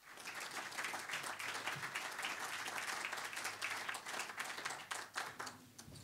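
Audience applauding: many people clapping at once, dying away about five and a half seconds in.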